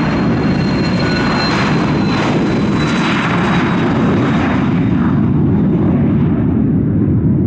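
Embraer Phenom 300 business jet's twin Pratt & Whitney Canada PW535 turbofans running as it rolls past and away. A steady rumble sits under a high whine, and the whine and hiss fade during the second half as the jet moves off.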